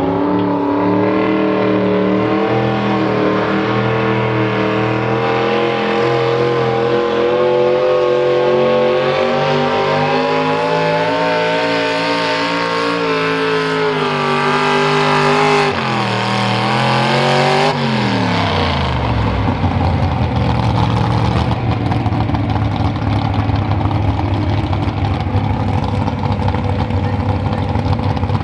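Classic modified pulling tractor's engine at high revs under load as it drags the weight sled down the track, its pitch wavering slightly and dipping once. About two-thirds of the way through it throttles down with a falling pitch and settles to a lower idle at the end of a full pull.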